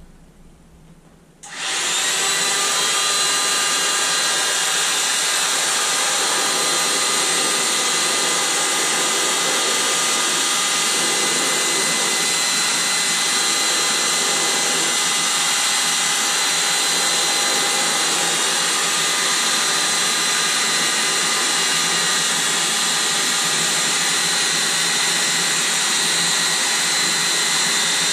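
Electric air pump inflating an inflatable swim ring: it starts about a second and a half in and runs steadily with a constant whine over a rushing blow.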